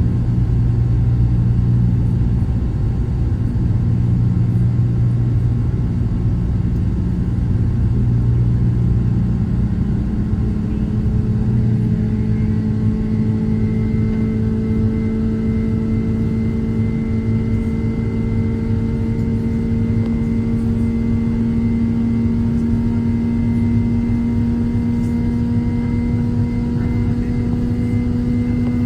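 Jet airliner cabin noise: a loud, steady rumble of engines and airflow with a droning engine hum. About ten seconds in, the hum shifts up and then keeps rising slowly in pitch.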